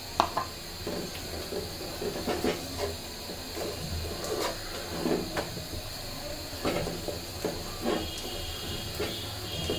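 Wooden spoon stirring and scraping rice flour and water in an aluminium pot, with irregular strokes and knocks against the metal, over a steady hiss from the gas burner heating it.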